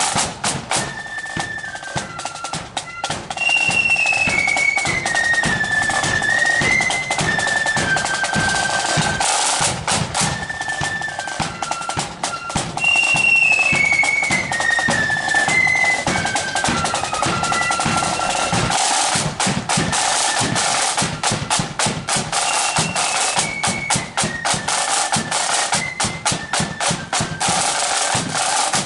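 Marching flute band playing: a stepwise, mostly falling flute tune that repeats its phrase, over snare drum rolls and a bass drum beat.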